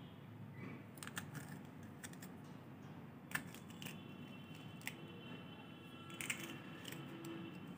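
A kitchen knife cutting a green chilli held in the hand: a few faint, crisp snips and clicks spread through, over low room noise.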